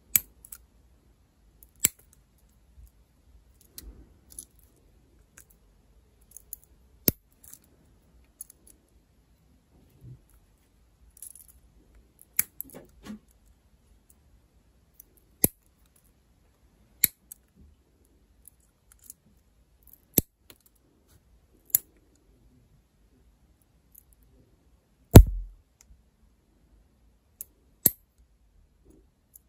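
Sharp, isolated clicks and snips of nail-art tools, spaced every one to three seconds, with one louder knock about 25 seconds in.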